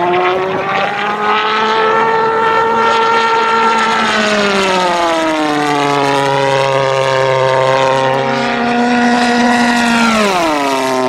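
High-speed radio-controlled jet model flying fast passes. Its engine gives a loud, steady, high-pitched tone that rises and dips slowly, then drops sharply about ten seconds in as the model flashes past.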